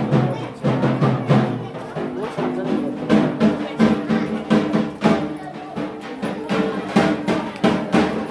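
Music with drums: a sustained melody of held notes over drum beats that come about once a second.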